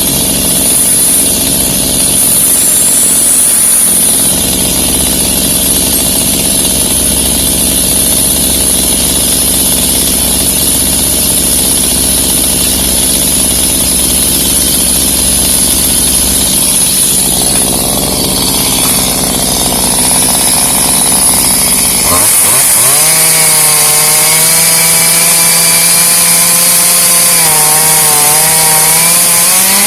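Two-stroke chainsaw running, with steady engine noise for most of the stretch, then opening up to full throttle about two-thirds of the way in, the pitch sagging and recovering near the end as the chain bogs in the pecan wood.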